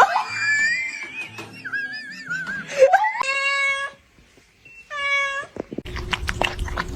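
Cat meowing several times. One call rises and is then held, and a shorter one comes a second or so later. Near the end there is a burst of clattering.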